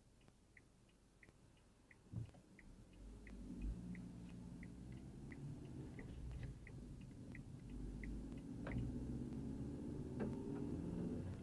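Car turn-signal indicator clicking steadily, about three clicks every two seconds, inside the cabin; the clicking stops about three quarters of the way through as the turn is completed. About two seconds in there is a low thump, then the engine picks up as the car pulls away.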